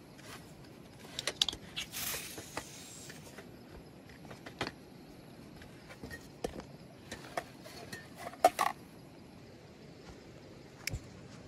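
Scattered light clicks and knocks of camp cooking gear being handled while a stove is set up, with a brief hiss about two seconds in and a louder cluster of clicks a little past the middle.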